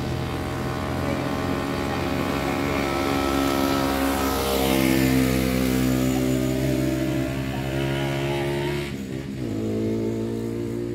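Motorcycle engine running at riding speed, with a rushing sound that swells and fades in the middle. About nine seconds in, the engine note dips sharply and settles lower, as when the rider eases off or changes gear.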